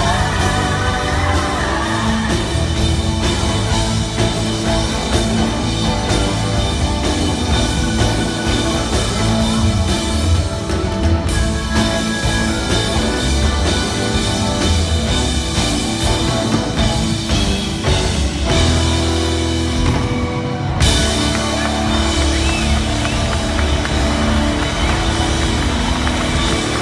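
Live rock band playing: electric guitar lines over a drum kit, heard from the audience in a large hall.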